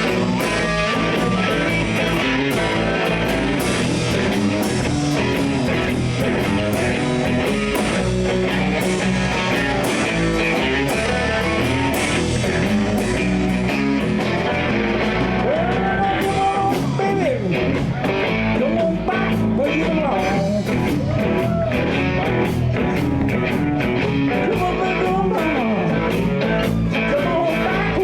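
Live blues band playing: guitars, bass and drums at a steady level, with a lead line bending in pitch from about halfway through.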